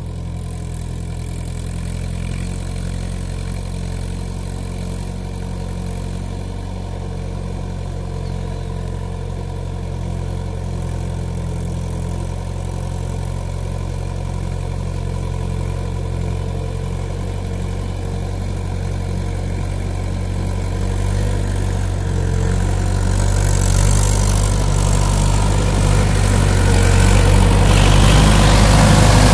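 Tractor diesel engines running steadily at low revs, growing louder over the last several seconds as the red Mahindra 585 DI tractor comes up close.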